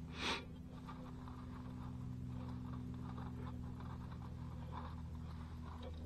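Gloved hands handling a wire and a shop rag: faint scattered rustling over a steady low hum, with a brief louder hiss just after the start.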